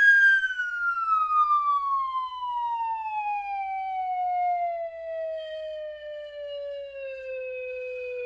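Slide whistle playing one long, unbroken falling note: the pitch slides slowly down from a high whistle to a much lower tone, the drop easing off toward the end, in the cartoon 'falling' effect.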